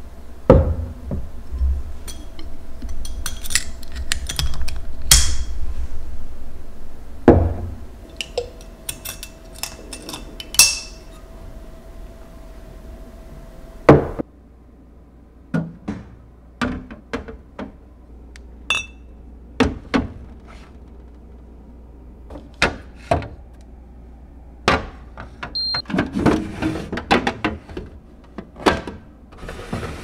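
Glass and plastic seasoning bottles and containers being handled and set down on refrigerator shelves: a string of separate clinks and thunks. A low hum runs under the first half.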